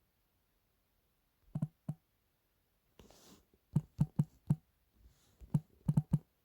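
A series of about ten sharp, irregular clicks and light knocks in small clusters, with a brief rustle about three seconds in.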